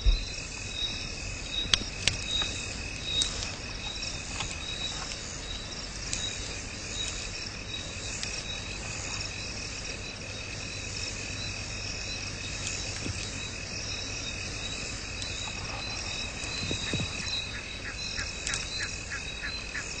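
A steady chorus of calling insects, high and continuous, with a quick run of clicking calls near the end.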